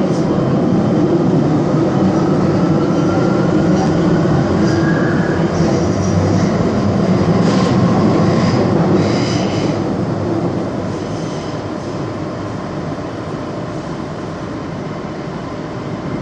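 Underground metro train running, with a whine that rises in pitch over the first few seconds. Wheels squeal briefly around the middle, then the running gets quieter.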